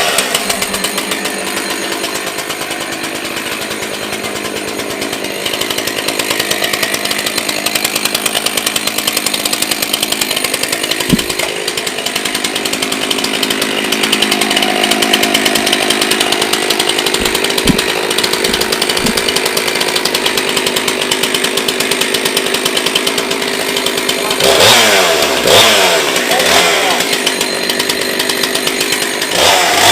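Two-stroke chainsaw running steadily, with its engine revving up and down about 25 seconds in.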